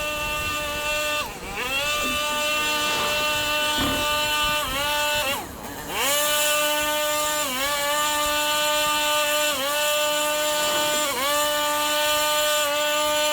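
Gas-powered leaf blower running at high throttle. Its pitch dips briefly and recovers every couple of seconds as the throttle is eased and opened again, with one longer drop about five and a half seconds in.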